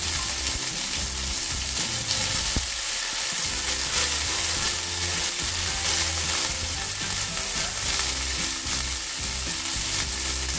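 Sliced onions sizzling in hot oil in a non-stick frying pan as they are stirred with a spatula: a steady frying hiss.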